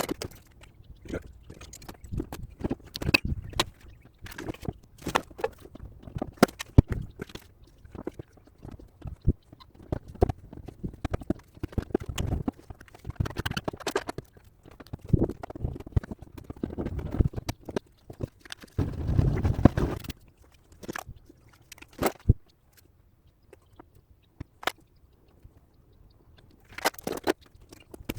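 Hand tools working a dented steel wheel-arch panel on a car: irregular sharp clicks and knocks mixed with rasping, scraping stretches, the longest about two-thirds of the way through, then a quieter spell.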